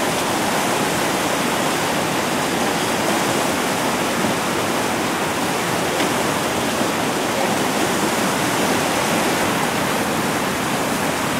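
Whitewater rapids rushing: a steady, even noise of churning river water.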